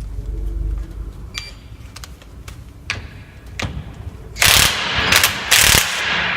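Ratchet wrench undoing the lower retaining nut of the valve body on a Mitsubishi Lancer 9 power steering rack: a few scattered tool clicks, then three loud bursts of dense ratcheting noise about four and a half seconds in.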